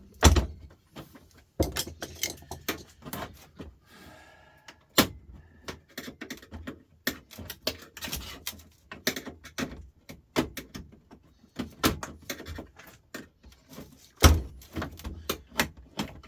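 Irregular clicks, clanks and knocks of metal and plastic parts being handled and worked loose while an electric cooker grill head is taken apart for scrap, with heavier thumps at the start, about a second and a half in, and near the end.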